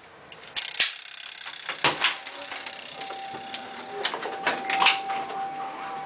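Simplex 4263 coded fire-alarm pull station being pulled: a series of sharp clicks and knocks from its handle and mechanism, then a steady high tone sets in about two seconds in and holds, with more clicks a couple of seconds later.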